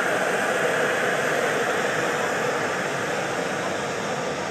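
Embraer 190 airliner's twin jet engines at takeoff power during its takeoff roll: a steady jet roar that eases slightly as the aircraft moves away.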